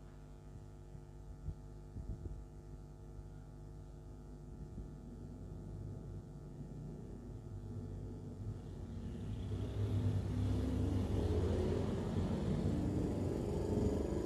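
A motor vehicle's low rumble growing louder from about nine seconds in, as it passes close by, over a steady hum.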